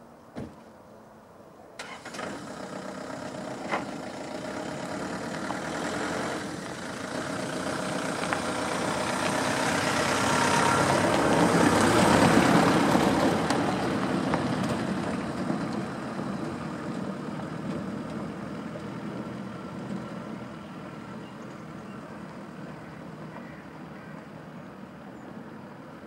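A motor engine passing by: it grows steadily louder to a peak about halfway through, then slowly fades away. A short sharp knock sounds just at the start.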